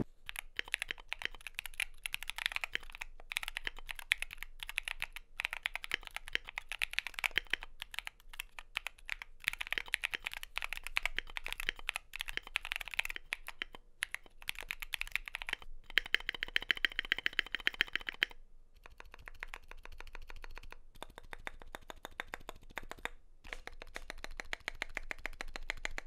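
Typing on an Epomaker GK68XS 65% keyboard in an aluminium case with an FR4 plate and stock Akko CS Blue tactile switches: a fast, steady run of sharp keystroke clacks, lighter after about 18 seconds. The stabilizers are lubed and the case is dampened, so the long keys move smoothly with no rattle, though the stock switches still sound loud with a sharp bump.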